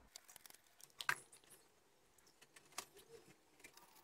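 Faint scattered clicks and light taps of a large framed wall mirror being handled against the wall while its fasteners are hooked onto screws, with two slightly louder knocks about a second in and near three seconds in.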